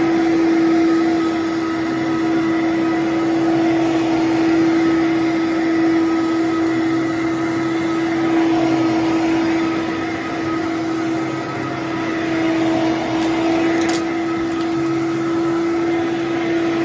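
Fantom Domestic 11-amp vacuum cleaner running steadily, a constant motor whine over the rush of air, with one short click about fourteen seconds in. It is running with a brand-new HEPA filter fitted.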